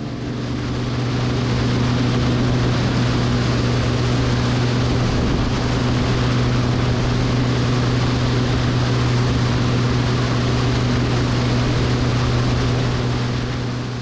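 Cessna T210 in flight, heard from the cabin: a steady low drone of the engine and propeller over the rush of airflow. It swells in over the first couple of seconds and begins to fade near the end.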